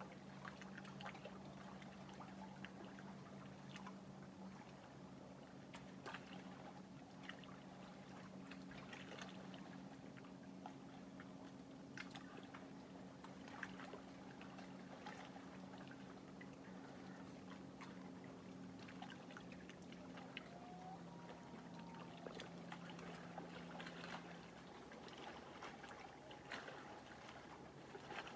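Lake water lapping faintly at the shore in small, irregular splashes and trickles. Under it runs a steady low hum that stops near the end.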